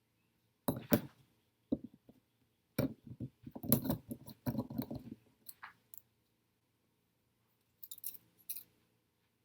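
Handling noises: bursts of clicks, taps and small knocks from objects being picked up and set down. The busiest cluster comes a few seconds in and a last short one near the end.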